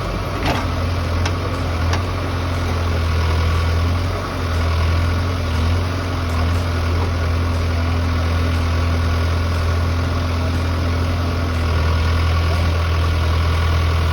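Excavator engine running steadily at a constant low hum, with a few light clicks in the first two seconds.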